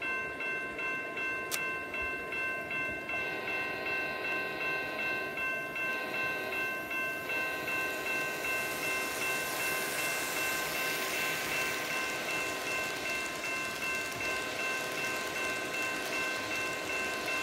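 Electronic crossing bell of a KATO North American-style model crossing gate ringing in a steady repeating pulse, over the engine sound of a model locomotive played by a KATO sound box. A single click comes about a second and a half in, and the clatter of the model train's wheels on the track swells about eight seconds in and fades a few seconds later.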